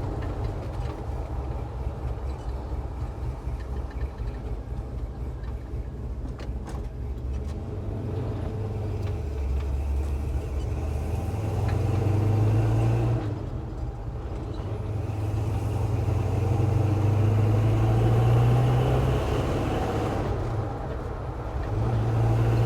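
1966 Chevy C10's 383 stroker V8 running under way. The engine note swells and climbs twice as the truck accelerates, easing off between the pulls.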